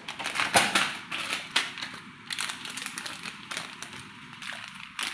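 Plastic packaging of a pani puri kit crinkling and rustling as it is handled, with irregular crackles throughout and the loudest crunch about half a second in.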